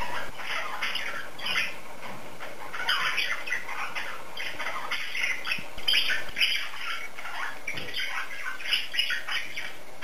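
Pet cockatiels, a normal grey and a pied, chattering with quick runs of short chirps and squawks.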